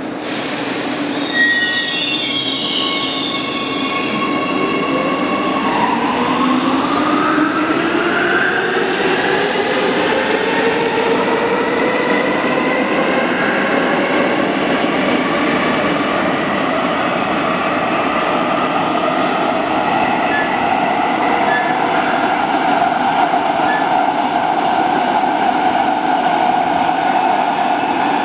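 Siemens Inspiro metro train pulling away: its electric traction drive gives a whine made of several tones that rise together in pitch over several seconds as it accelerates. This settles into a steady running sound of motors and steel wheels on rail, with some wheel squeal.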